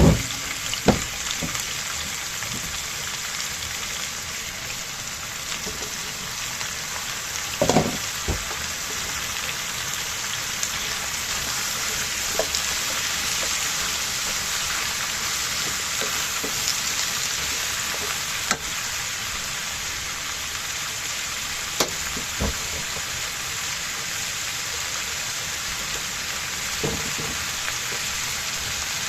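Food frying in a pan with a steady sizzle, broken by a few scattered knocks.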